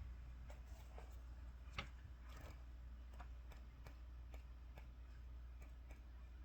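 Faint, irregular light clicks and taps from cards and paper being handled, over a low steady hum.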